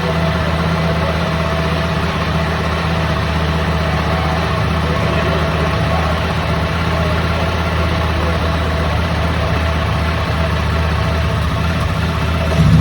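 Ducati Panigale V4 R's 998 cc V4 engine idling steadily just after start-up, a deep, even exhaust note.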